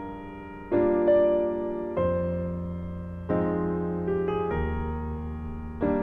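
Slow solo piano music: chords and single notes struck every second or so and left to ring and fade.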